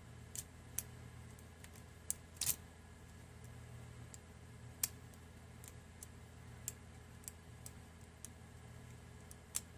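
Faint, irregular clicks of a lock pick and tension wrench working the spool-pinned cylinder of an Abus 83/80 padlock as the pins are set, over a low steady hum.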